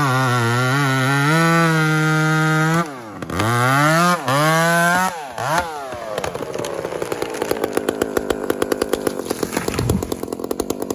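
Two-stroke chainsaw held at full throttle, dropping off and revving up again twice in quick succession. About six seconds in it settles to an evenly pulsing idle.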